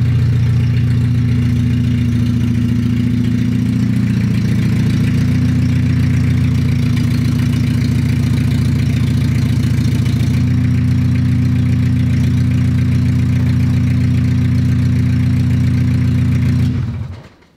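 Iveco Daily 35-8 van's diesel engine running loudly as the van pulls in and stands. The engine sound stops near the end.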